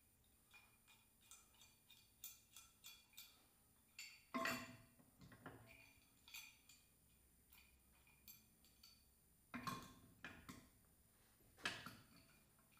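Faint, scattered clicks and clinks of small parts and hand tools being handled while something is taken apart, with three louder knocks about four, nine and a half, and eleven and a half seconds in.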